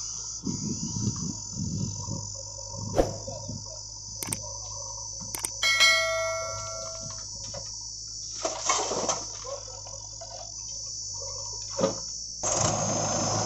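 Earth and stones being loaded from a backhoe bucket into a steel tipping trailer: scattered knocks and thumps, with one metallic clang ringing briefly about six seconds in. A steady high chirring of insects and a low engine hum run underneath.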